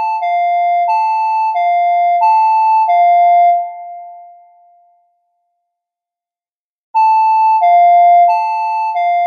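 Emergency alert system alarm tone: an electronic two-note signal switching between a high and a low note about every two-thirds of a second. It fades out about three and a half seconds in, stops for about two seconds, and starts again about seven seconds in.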